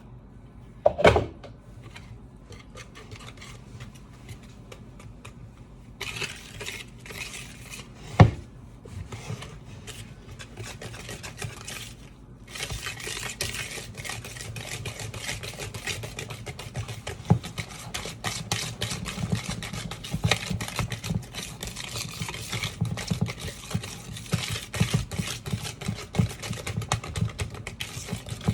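Cake batter being mixed by hand in a bowl: the utensil scraping and clicking against the bowl, with a couple of sharp knocks near the start and steadier, busier stirring in the second half.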